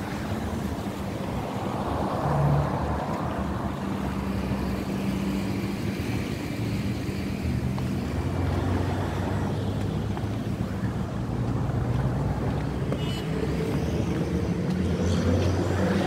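Street traffic: car engines running, a low steady hum under a noisy outdoor wash.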